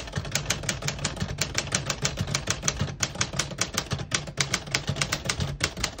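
Smith-Corona Sterling manual portable typewriter being typed on: a quick, even run of key and typebar strikes, about seven clacks a second.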